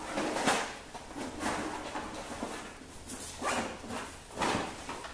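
A dog barking, about four short barks spaced roughly a second apart.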